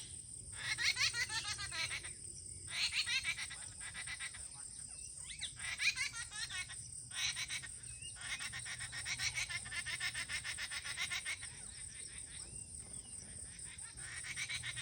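Birds chattering and chirping in fast runs of high notes, broken by short pauses, over a steady high-pitched drone.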